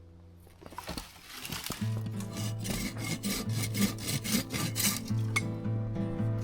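Rhythmic rasping strokes of a hand saw cutting through a wooden branch, about three or four strokes a second, over background music.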